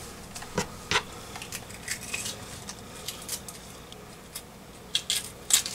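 Scattered light clicks and taps of mini sweet peppers being handled and set down on a plastic cutting board while their seeds and white pith are cleaned out, with a few sharper taps near the end.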